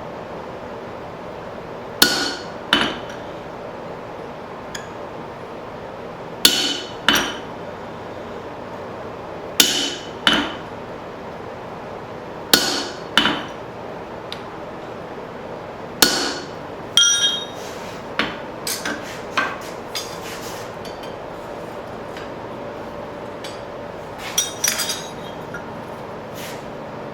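Hammer blows ringing on a steel drift driven through the eye of a hot cross peen hammer head, mostly in pairs every three or four seconds, with a run of lighter, quicker taps about two thirds of the way through. A steady hum runs underneath.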